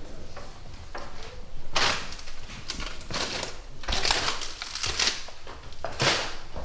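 Footsteps crunching and scuffing over a debris-strewn floor, an irregular series of steps.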